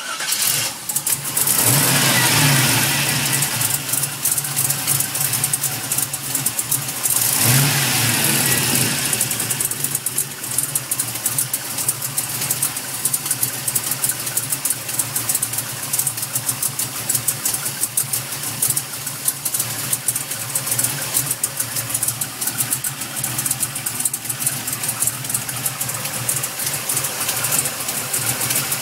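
Engine running with a fast, steady ticking, revved up briefly twice early on and then left to idle. The tick is the kind the owner suspects comes from a bad valve lifter.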